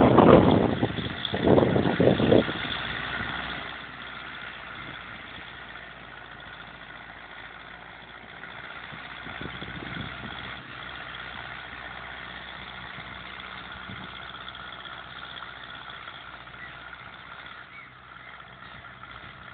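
Ursus C-360 tractor's four-cylinder diesel engine running steadily while pulling a three-furrow reversible plough. Gusts of wind buffet the microphone for the first couple of seconds.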